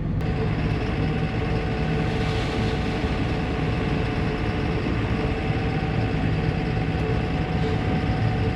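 Tractor engine running steadily as it drives a grain cart's unloading auger, with a steady mechanical whine setting in just after the start.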